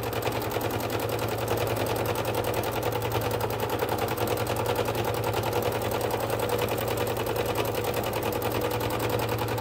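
Domestic sewing machine running steadily, its needle stitching in a fast, even rattle over a motor hum, as a free-motion meander is quilted through layers of cotton and batting with a darning foot and the feed dogs lowered.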